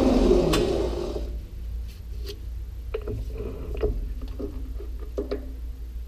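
Metal lathe spindle spinning down after switch-off, then a series of light metallic clicks and taps as a caliper is set against the turned workpiece, over a steady low hum.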